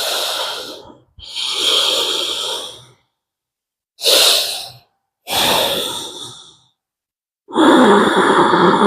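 A person breathing hard and noisily: five forceful, hissing breaths with short silences between them, the last and longest one voiced.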